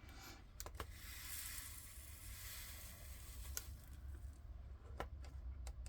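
Faint hissing rattle of tiny resin diamond-painting drills pouring, with a few sharp plastic clicks.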